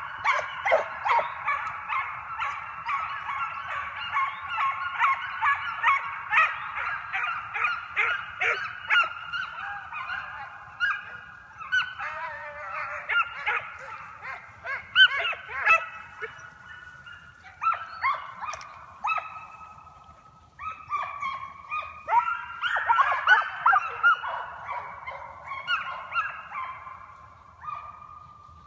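A pack of hunting hounds baying together while running a scent trail: a continuous chorus of many overlapping calls. It dips briefly about two-thirds of the way through, swells again, then trails off near the end.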